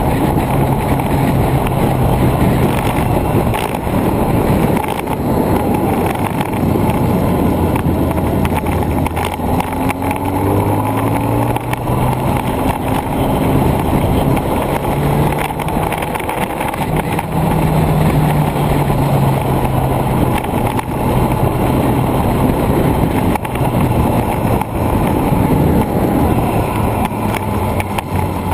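Motorcycle engine running at road speed with wind rushing over the microphone. The engine note steps up and down in pitch through the middle stretch as the throttle changes.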